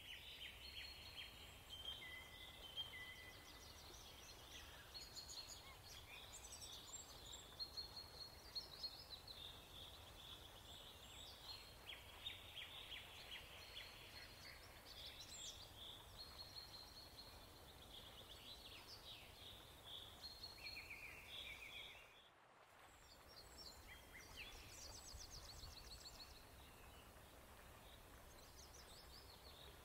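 Faint birds chirping and trilling over a low background rumble, with many short calls throughout; the sound drops out briefly about two-thirds of the way through.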